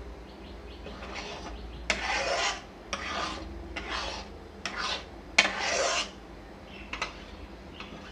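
Steel spatula scraping around a metal kadhai as thick curry gravy is stirred: a series of rasping strokes about two seconds in, then a couple of light taps of the spatula on the pan.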